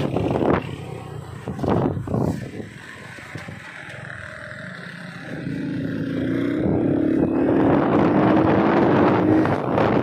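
Motorcycle ride: wind rushing on the microphone over the engine, which goes quieter for a few seconds, then a rising engine note as the bike accelerates about halfway through.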